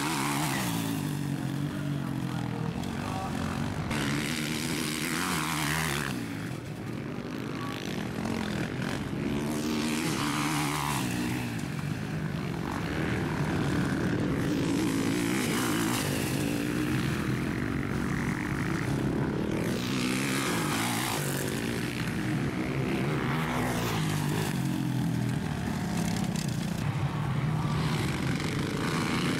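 Motocross dirt bikes racing round the track, their engines revving up and down through the gears as riders pass one after another.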